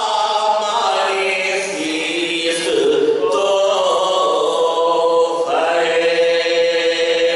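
Several men's voices chanting a devotional recitation without instruments, holding long notes together that slide up and down in pitch.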